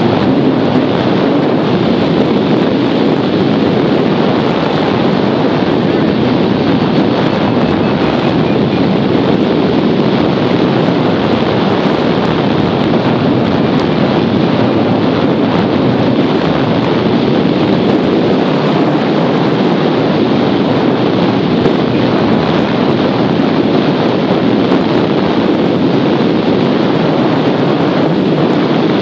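Loud, steady rush of airflow buffeting the microphone of a camera mounted on a hang glider in flight.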